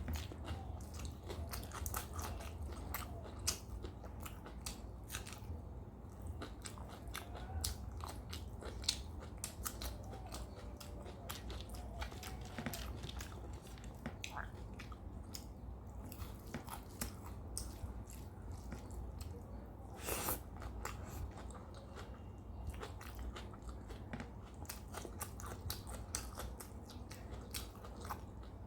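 A person chewing and biting food close to the microphone: a steady run of small crunches, mouth clicks and wet chewing sounds, with one louder crunch about twenty seconds in.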